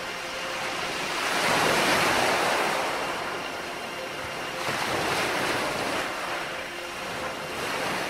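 Beach ambience of ocean surf, waves washing in and pulling back in three swells: the loudest around two seconds in, another around five seconds, and a third starting near the end.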